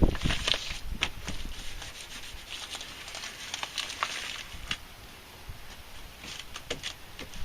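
Plastic door vapor barrier crinkling and being rubbed by hand onto the door's sticky sealant, in uneven patches with a few light clicks.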